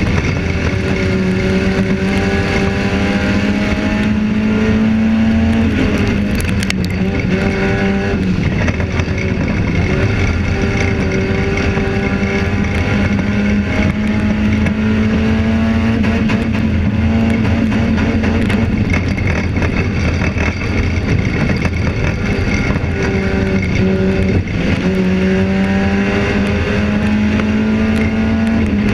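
Race car engine heard from inside the cockpit, its pitch climbing for several seconds as it accelerates and then dropping sharply as the throttle is lifted, several times over, with a steady rushing noise underneath.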